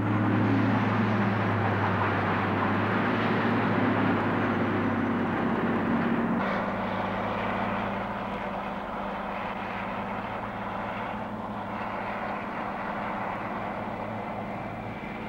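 The diesel engine of a large Clark Michigan wheel loader, running steadily as it hauls rock, with a low, constant drone. About six seconds in the sound changes abruptly to a somewhat quieter drone.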